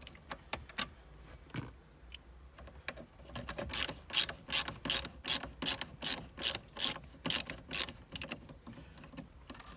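Phillips screwdriver undoing a mounting screw of a Volkswagen Golf 6 factory radio, clicking sharply as it turns. A few scattered clicks come first; then, from a few seconds in, the clicks settle into an even run of about three a second for several seconds.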